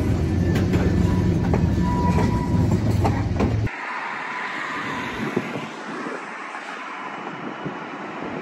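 Freight train of ethanol tank cars rolling past close by: a heavy low rumble with sharp wheel clicks over the rail joints and a faint wheel whine. About three and a half seconds in it cuts off suddenly to a much quieter, steady hiss as the train is heard far off.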